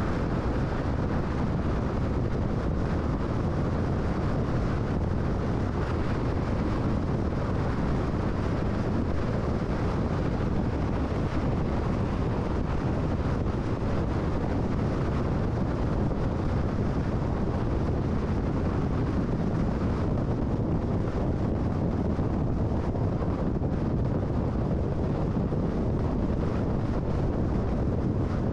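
Steady road and wind noise of a car driving at highway speed, an even low rumble without changes.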